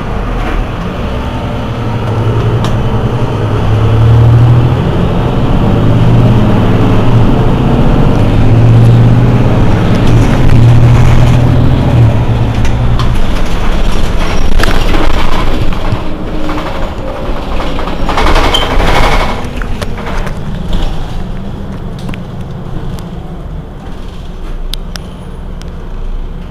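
Mercedes-Benz Citaro C2 city bus's diesel engine running close by, a steady low drone that is loudest in the first half and then eases off. About two-thirds of the way through comes a short hiss.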